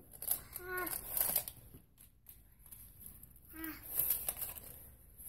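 A toddler's short wordless vocal sounds, twice, about a second in and again near the four-second mark, with light rustling and crinkling as his hands rummage through bags and boxes of snacks.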